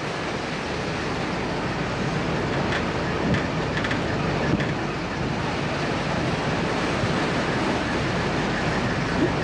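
Wind and rough sea heard from a ship's deck: a steady rush of wind on the microphone and breaking waves, over a low steady rumble.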